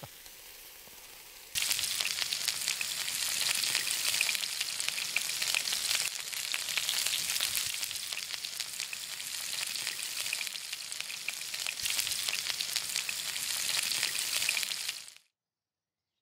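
Sausages sizzling in a frying pan: a dense crackling hiss, fainter at first, louder from about a second and a half in, then cut off suddenly near the end.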